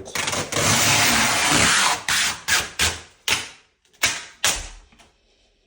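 Adhesive packing tape being peeled off an appliance's side: one long rasping rip of about two seconds, then about six short pulls, each fading out.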